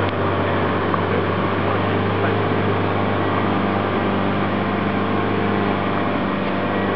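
Off-road Toyota 4WD's engine running steadily as the vehicle crawls slowly over a rutted dirt track.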